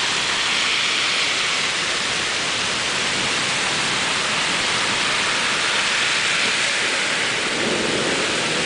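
Heavy thunderstorm rain pouring steadily onto a street, cars and tree leaves, a dense even hiss. A low rumble of thunder begins near the end.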